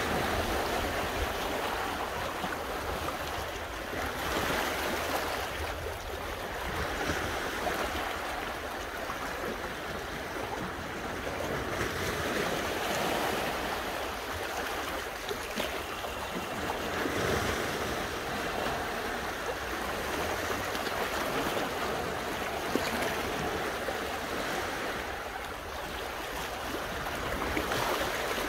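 Sea waves washing against a rocky shore: a steady rush that swells and fades every few seconds.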